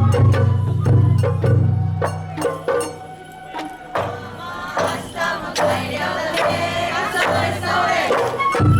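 Sawara-bayashi festival music played live: a bamboo flute melody over taiko drums, with a steady pattern of drum strikes.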